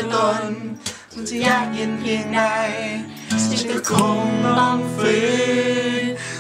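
A Thai song sung to live guitar accompaniment, the voice holding long notes.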